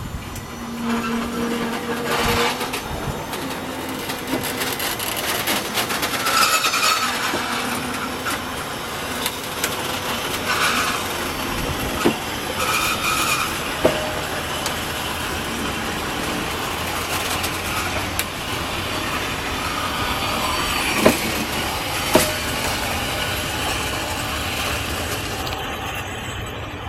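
Train rolling past on the track: continuous running noise of steel wheels on rail, with short squeals and a few sharp knocks, the loudest two close together about 21 seconds in.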